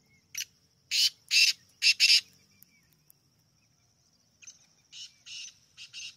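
Black francolin calling: a loud series of five short, rasping notes in under two seconds, then a fainter series of five notes near the end.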